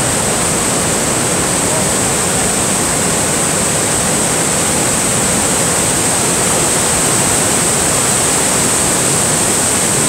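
Niagara Falls heard at close range: a steady, loud rush of falling water, with cascades pouring over the rocks below and a strong high hiss of spray.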